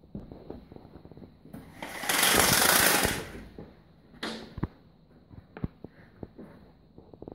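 Scattered soft thumps and crunches of feet moving through snow, with a loud hissing rustle lasting about a second, about two seconds in, and a shorter one after four seconds.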